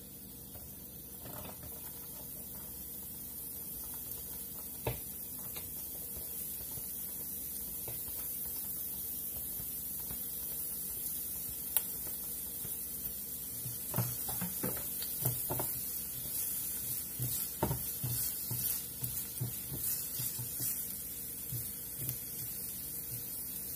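Diced garlic in oil in a stainless-steel pan starting to sizzle as the pan heats, the hiss growing louder. About halfway through, chopped onion is scraped into the pan from a plastic cutting board, and a spatula then scrapes and knocks against the pan as it is stirred.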